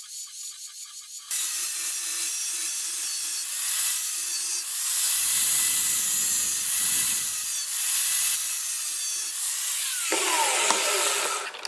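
DeWalt angle grinder with a thin cut-off disc cutting slits into a steel pipe: a steady motor whine under the hiss of the cut. It begins abruptly about a second in, and near the end the grinder is switched off and its pitch falls as it winds down.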